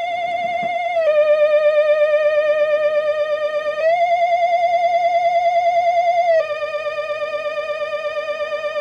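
Retro Halloween spooky sound-effect loop: a single eerie warbling tone with fast vibrato, held for two to three seconds at a time and stepping between a higher and a lower note, down, up and down again.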